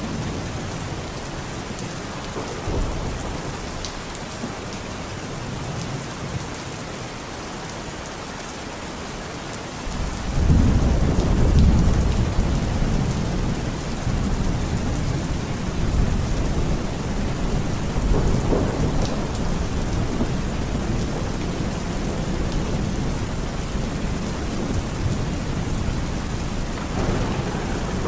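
Steady rain falling. A low rumble of thunder rolls in about ten seconds in and keeps rumbling under the rain, swelling again near the end.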